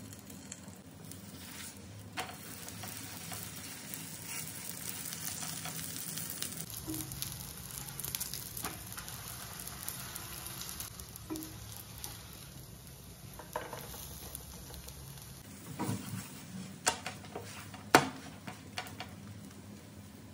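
Parotta frying in ghee on a flat nonstick tawa, a steady soft sizzle, with a wooden spatula scraping and tapping against the pan. A few sharp knocks come near the end, one much louder than the rest.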